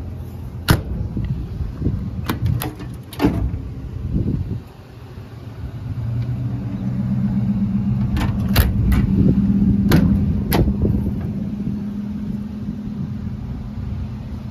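Metal compartment doors and latches on a truck's utility body clacking as they are worked: about four sharp clacks in the first few seconds and five more between about eight and eleven seconds in. Underneath is a low rumble, with a steady vehicle engine hum from about six seconds in.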